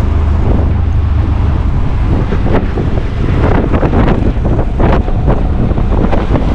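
Wind buffeting the microphone during an auto-rickshaw ride, over the steady rumble of the rickshaw's engine, with irregular knocks and rattles from the road.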